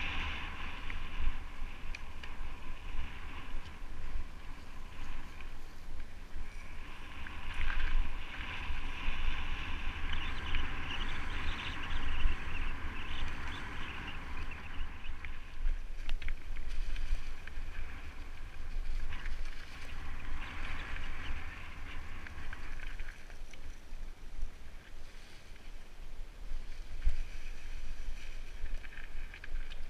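Mountain bike riding a dry, leaf-strewn singletrack: tyres rustling and crunching over the trail and the bike rattling, louder in stretches, under a steady rumble of wind buffeting the microphone.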